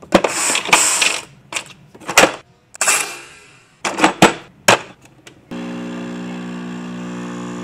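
A run of sharp clicks, knocks and clatters as a drawer and an espresso machine are handled, then about five and a half seconds in the espresso machine's pump starts with a steady hum.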